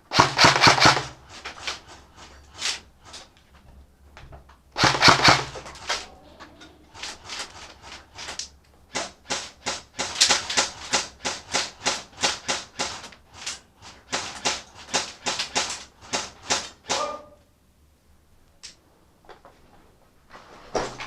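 Two short bursts of rapid airsoft gun fire, with the gun's motor humming under the clicks, one at the start and one about five seconds in. These are followed by some ten seconds of sharp clicks and knocks at about three a second, which die away about four seconds before the end.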